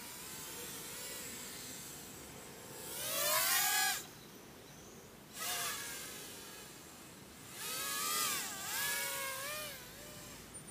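Micro FPV quadcopter's DYS 1104 brushless motors spinning Gemfan 3025 props: a high whine that climbs and falls in pitch with the throttle. It surges loudest about three seconds in and again around eight seconds, dropping back in between.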